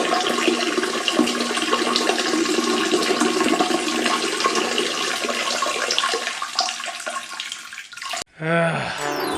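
Peeing sound effect: a steady stream of urine splashing into toilet water, which cuts off suddenly about eight seconds in. A short pitched sound that slides in pitch follows.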